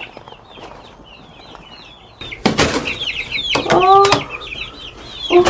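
Barred Rock chicks peeping over and over, a stream of short, high, falling chirps. From about two seconds in, loud rustling and scraping of the cardboard shipping box as it is set down and its lid opened.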